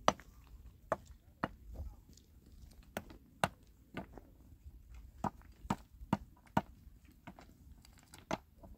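A series of sharp knocks, about two a second and unevenly spaced.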